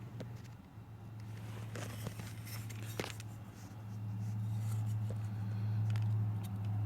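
A few light metal clicks and taps, with one sharper tap about three seconds in and a brief scrape before it, as steering-column parts are pried apart with a butter knife and a hammer. Under them a steady low hum that swells in the second half.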